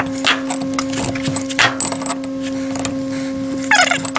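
Light metal workshop handling noises, with scattered clinks and scrapes and a brief squeak near the end, over a steady hum.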